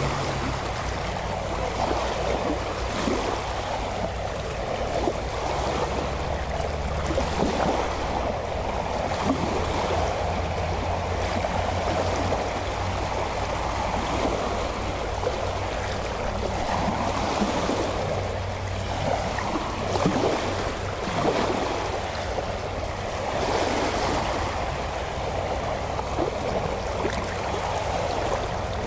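Small waves lapping along the shore of a calm sea, the water sound swelling and ebbing irregularly, with a low steady hum beneath.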